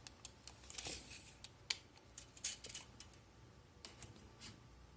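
Scattered light clicks, taps and brief rustles of objects handled on a desk, irregular rather than the steady run of typing.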